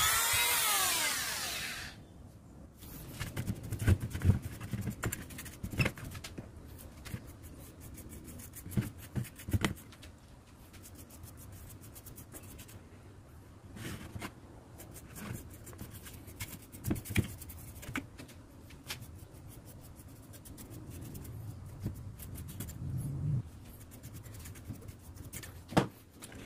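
A handheld rotary tool whines and fades out about two seconds in. After that come faint scattered clicks, taps and rubbing of hard coconut-shell pieces being handled and fitted together by hand.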